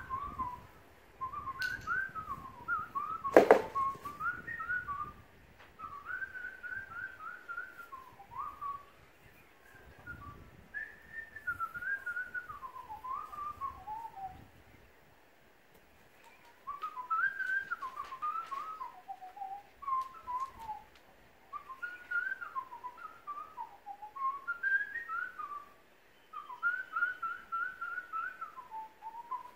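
A person whistling a wandering tune in short phrases, with a pause of a couple of seconds about halfway through. A single sharp knock about three and a half seconds in is the loudest sound.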